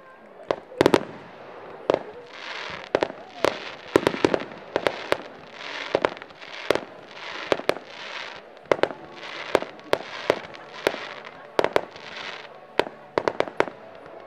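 Fireworks display: a fast, irregular run of sharp bangs, dozens of them, with short bursts of hissing crackle between the reports.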